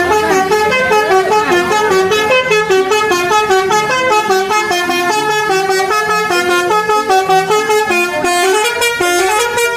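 Indonesian 'telolet' bus horn playing a quick melody: several horn tones sound together and step up and down in pitch.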